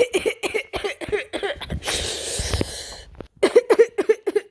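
A person coughing over and over in quick short bursts, with a long, rough, breathy burst from about two to three seconds in.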